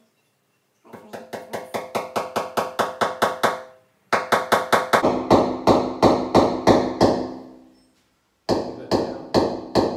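Claw hammer striking a steel nail against a brick wall in quick runs of blows, about four to five a second with short breaks, each blow ringing with a metallic tone. The nail won't go into the brick and bends.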